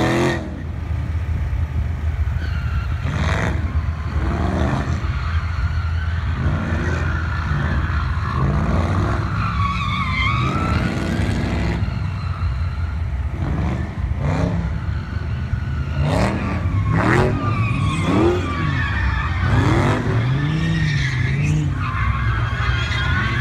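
Dodge V8 performance cars driven hard: engines revving up and dropping back again and again, with tires squealing and skidding in between.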